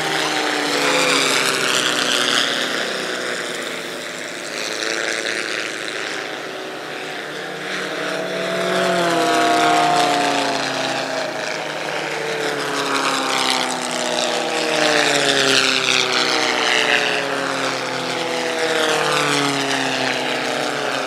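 Several propeller planes flying past in formation with their engines running. Each engine's pitch slides down as it passes, and the sound swells and fades several times.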